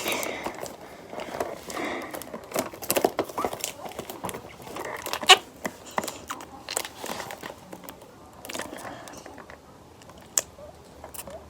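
Rustling and crinkling handling noise with scattered clicks and knocks, as things are moved about and handled.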